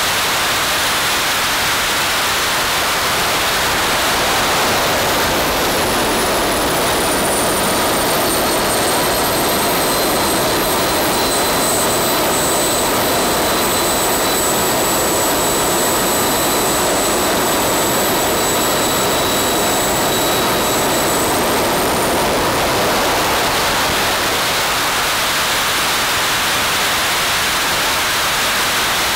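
Small RC turbojet engine burning biodiesel, running at full throttle, then spooling down to idle about five seconds in, its high whine falling in pitch and settling into a steady whistle over the rush of the exhaust. About twenty-one seconds in it spools back up to full throttle, the whine rising again.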